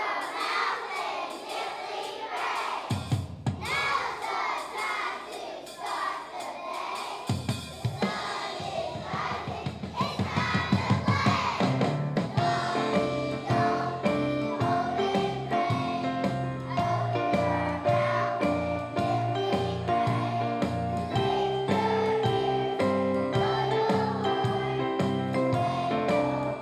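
A group of young children singing together with music accompaniment; the accompaniment with a steady bass line comes in strongly about twelve seconds in.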